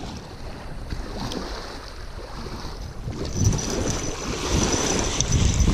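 Wind buffeting the microphone over small waves lapping at the lake shore; from about three seconds in, louder splashing as a hooked fish thrashes in the shallows.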